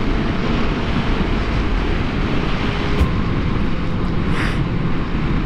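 Wind rushing over the microphone of a sport motorcycle at road speed, with the engine running steadily beneath it. A brief click about three seconds in and a short hiss a little later.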